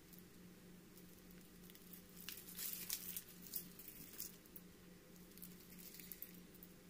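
Faint crinkling and rustling of a plastic piping bag and disposable plastic gloves being handled, a cluster of short crackles in the middle, over a steady low hum.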